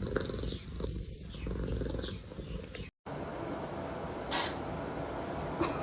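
Domestic cat purring close up, a low rapid rumble that cuts off abruptly about three seconds in, giving way to quieter low background noise with a short hiss.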